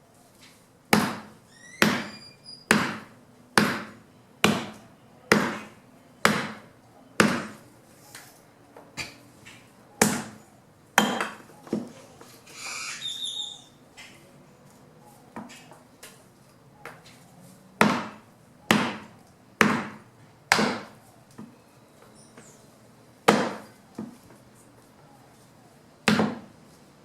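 Fallen branches being chopped into wood chips by hand with a blade: a steady run of sharp chops about one a second, then lighter, irregular strikes and a brief rustle, then more spaced-out chops.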